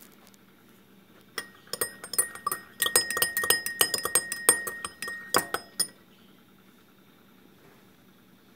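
Metal spoon stirring black coffee in a cup, clinking rapidly against the cup's sides for about four and a half seconds, starting a little over a second in; each strike rings briefly.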